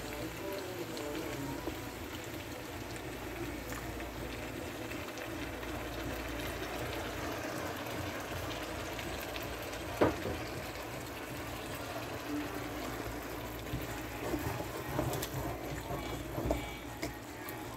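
Food sizzling and bubbling in a pan, steady throughout. A sharp knock about ten seconds in, and a few smaller knocks and clatters near the end.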